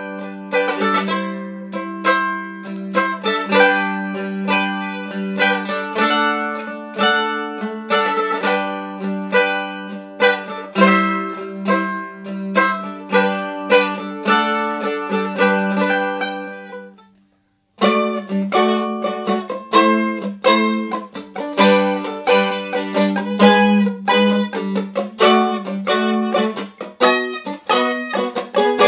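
1907 Gibson A4 mandolin being played: a run of rapidly picked notes and chords. The playing breaks off for a moment about two-thirds of the way through, then starts again.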